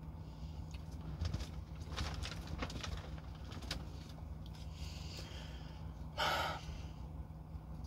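Eating sounds: small wet clicks and smacks of chewing and finger-licking from fried chicken, over a steady low hum. About six seconds in there is one brief, louder rush of noise.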